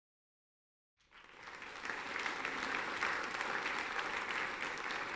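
Audience applauding. It fades in about a second in, then holds steady.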